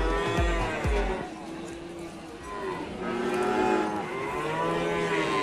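Cattle mooing: several long drawn-out moos that rise and fall in pitch. The first moo sits over the end of a music track's thudding beat, which stops about a second in.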